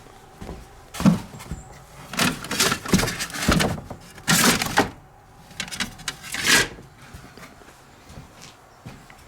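Thunks, knocks and scraping of stored audio gear being shifted around by hand, in several bursts over about six seconds, dying down near the end.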